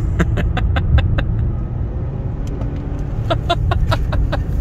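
Cabin noise of a base Mercedes A-Class at high speed on the track: a steady low engine and road rumble heard from inside the car. Twice it is broken by a short run of quick rhythmic pulses, about six a second.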